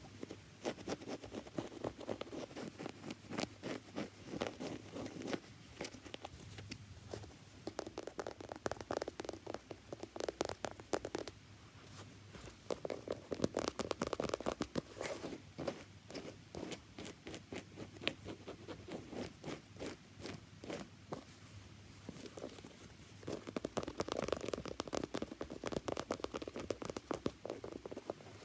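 Fast tapping and scratching on a shoe: dense quick clicks in runs of a few seconds, with short breaks between runs.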